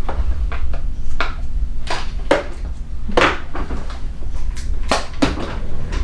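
Hands rummaging through a desk drawer of small eye-exam instruments: an irregular run of clicks, knocks and clattering as hard items are moved about and picked out.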